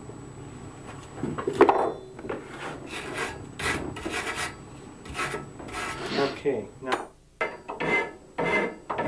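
A hand file rasping over a small forged steel piece in a series of short strokes, roughly two a second, starting about a second and a half in.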